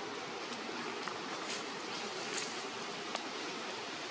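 Steady outdoor background hiss with a few brief crackles, like dry leaf litter, about one to three seconds in.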